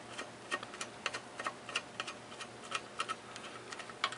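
Screwdriver turning a small screw into a chrome bicycle chainguard's mounting bracket: a run of light, irregular metallic clicks, about three a second.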